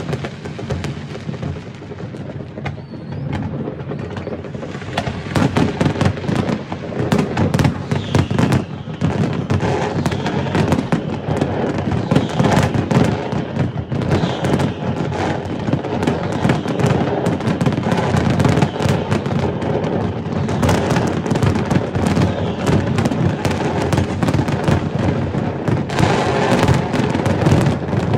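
Fireworks display: a dense, continuous barrage of shell bursts and crackle, filling out and getting louder about five seconds in.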